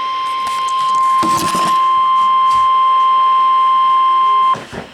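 NOAA Weather Radio warning alarm tone, the steady 1050 Hz single-pitch tone that signals a warning message is about to be read, here a tornado warning. It is loud and steady, with a brief crackle of noise about a second in, and cuts off abruptly about four and a half seconds in.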